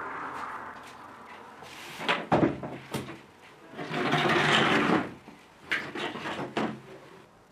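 Books and papers being handled at a desk: a few sharp knocks, a longer rustling sweep about four seconds in, then more knocks near the end.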